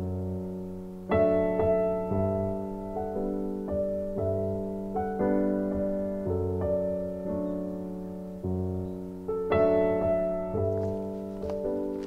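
Background piano music: slow, gentle notes, each struck and left to fade.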